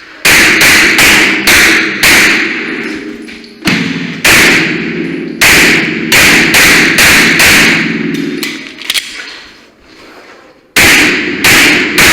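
Glock 34 9mm pistol fired in quick strings of shots about half a second apart, with pauses of a second or more between strings, as the shooter engages targets on an IDPA stage.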